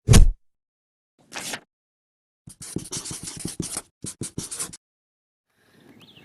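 A heavy thud, a brief hiss about a second later, then a quick run of scratching strokes lasting about two seconds; faint outdoor background comes in near the end.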